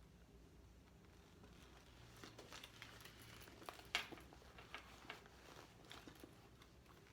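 Faint handling sounds of a leather handbag being turned over and inspected: soft rustles and small clicks that begin about two seconds in, the sharpest click about four seconds in.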